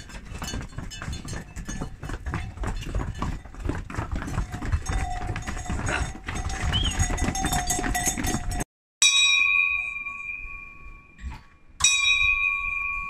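Livestock neck bells jangle and clank continuously, as from pack animals on the move. After a short break, a single clear bell is struck twice about three seconds apart, each ring fading away.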